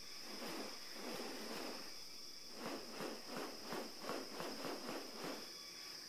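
Rhythmic swishing wing strokes, about three a second, from a black forest bird spreading its wings in display. A steady high insect drone runs underneath.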